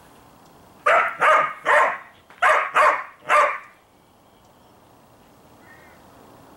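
A dog barking six times in quick succession, in two runs of three.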